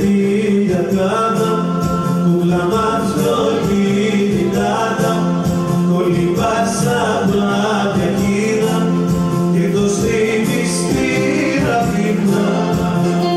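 Live band music from a Greek–Arabic medley: a man singing into a microphone over keyboard accompaniment, at a steady level with no breaks.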